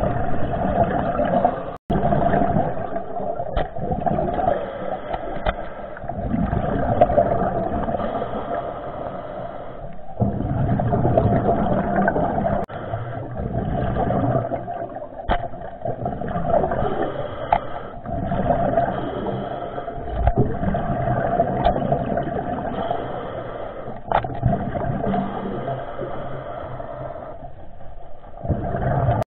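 Muffled rushing and gurgling of water around an underwater camera, swelling and fading every few seconds, with a few faint sharp clicks.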